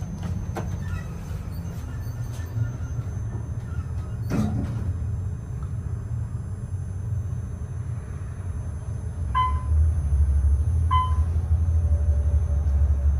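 Modernized Otis traction elevator car travelling down, a steady low rumble that grows louder about two-thirds of the way through. A single thump comes about four seconds in, and two short beeps sound about a second and a half apart near the end.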